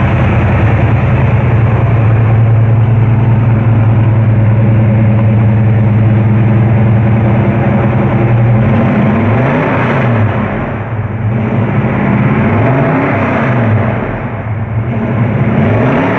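Year One crate 350 cubic-inch V8 in a 1966 Chevy II Nova running through its exhaust: a steady idle for the first half, then revved several times in the second half, the pitch rising and falling with each blip.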